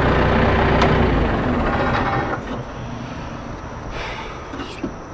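A heavy engine running with a low rumble, which fades away about two and a half seconds in and leaves quieter outdoor noise.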